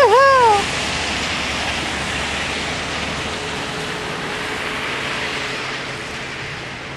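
A high excited voice ends a cheer in the first half second, then a steady rushing hiss of outdoor noise carries on and slowly fades toward the end.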